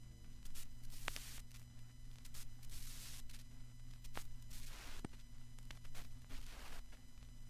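Quiet passage of harsh noise music: a steady low electrical hum under irregular bursts of hiss and scattered sharp clicks.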